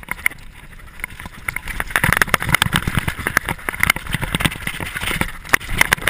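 Mountain bike descending a dirt forest trail, heard from a camera on the rider: tyre and wind noise, with many quick rattles and knocks as the bike runs over bumps. It gets louder as speed builds about two seconds in.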